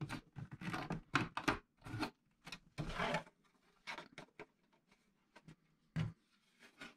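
Handling noise of a plastic cartridge display board being turned over and tilted in the hands. A quick run of small plastic taps, clicks and rubs comes first, then a few separate knocks, the loudest about six seconds in.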